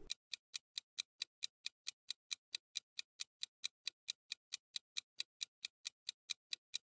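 Clock-ticking sound effect counting down the time to answer a quiz question: short, even ticks at about four to five a second.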